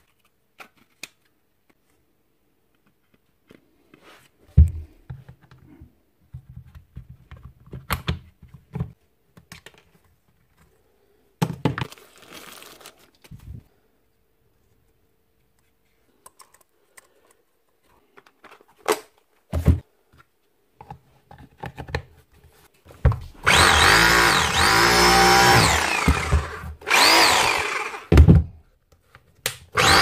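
Bosch GBH 4 DFE rotary hammer test-run after repair: its motor starts about three quarters of the way in and runs loudly, its pitch rising and falling, cutting out briefly twice before running on. Before that, scattered clicks and knocks of parts being fitted.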